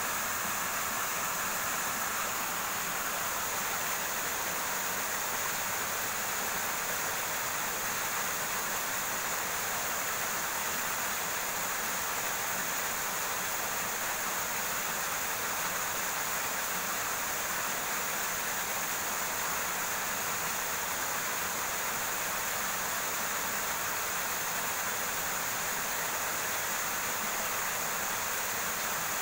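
River water rushing steadily over rocks, an unbroken hiss with a constant high-pitched band above it.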